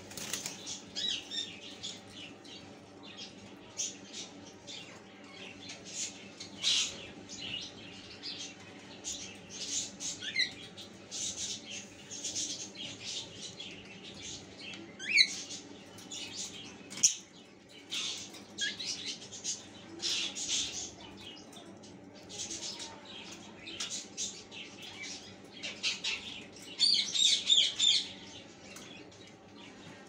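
Lovebirds pecking at and tearing a green leafy vegetable: a busy run of quick, crisp crackles and rustles of the leaf, with a couple of short rising chirps and two sharp clicks in the middle, and a denser burst of crackling near the end.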